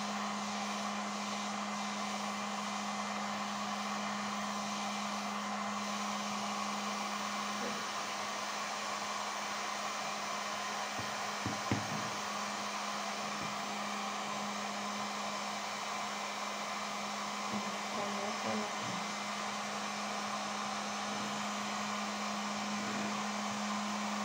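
Electric heat gun blowing hot air steadily, with a constant low hum under the rush of air. A few light knocks come about halfway through and again about three quarters of the way in.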